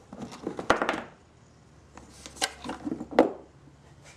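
Knocks and clatter from the wooden phonograph motor board and its metal mounting bolts being handled. There are two bursts of knocks and clicks, the sharpest one about three seconds in.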